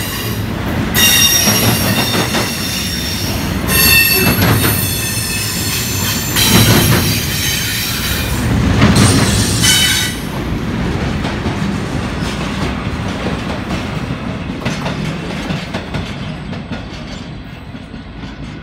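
Double-stack intermodal container train rolling past, with the steel wheels giving several short high-pitched squeals over the rumble of the cars in the first ten seconds. The rumble then fades steadily as the end of the train moves away.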